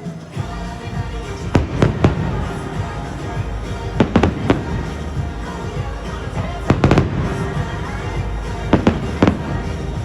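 Fireworks shells bursting in quick clusters of two or three bangs about every two seconds, over a steady music soundtrack.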